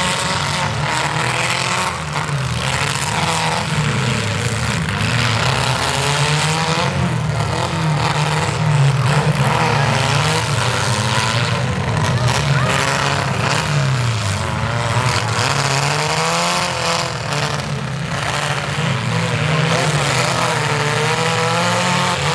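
Several mini demolition derby cars' engines revving hard at once, their pitches rising and falling over each other as the cars push and ram in the dirt arena.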